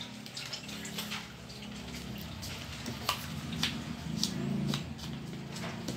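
A PVC barrel pipe being pushed and twisted into a larger PVC housing pipe: plastic rubbing and scraping with several sharp clicks, over a low steady hum.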